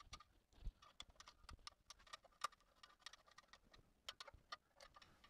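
Faint, irregular metal clicks of a hex key turning socket head cap screws that fasten a small sheet-metal tool tray.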